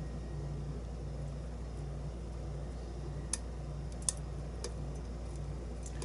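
A hook pick working the pins of a brass pin-tumbler lock cylinder under tension, giving three small sharp clicks about three to four and a half seconds in. A low, steady background hum underlies it.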